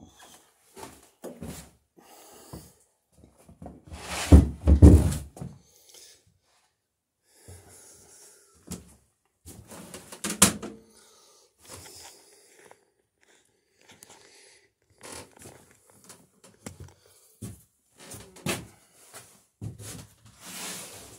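Camera handling noise as it is carried and set down: scattered knocks, clicks, rustles and footsteps on a wooden floor, loudest as a cluster of deep thumps about four to five seconds in.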